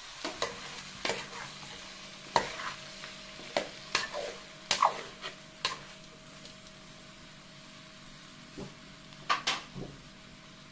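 A metal spoon stirring shrimp in an aluminium pot, clinking and scraping against the metal in about ten sharp knocks over the first six seconds, then a pause and a few more near the end. A faint steady sizzle runs underneath.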